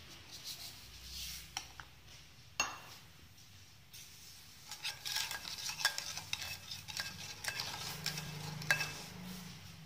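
Metal spoon stirring granulated sugar into liquid in a stainless steel bowl, scraping and clinking against the bowl. One sharp clink comes about two and a half seconds in, and a run of quick clinks fills the second half.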